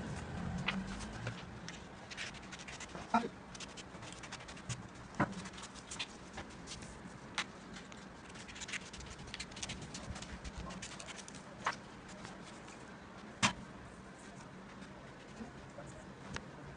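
Scissors snipping paper and paper being handled as sheets are cut into strips: a scratchy, rustling background broken by a handful of sharp clicks spaced a few seconds apart.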